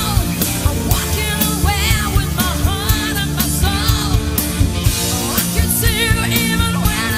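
Rock band playing, with a drum kit keeping a steady beat under a singer's held notes with vibrato.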